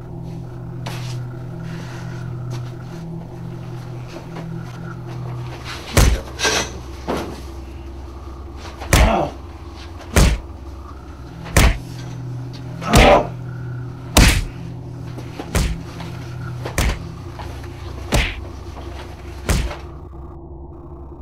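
A series of about a dozen sharp blows, punches landing on a captive, one every second or so starting about six seconds in, over a low steady drone.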